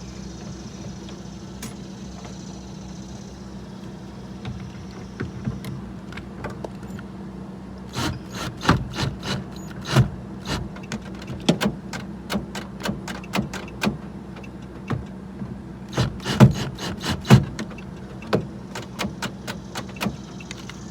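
Irregular clicks, taps and knocks of hand tools working on metal and plastic parts inside a car door, coming thick from about eight seconds in, over a steady low hum.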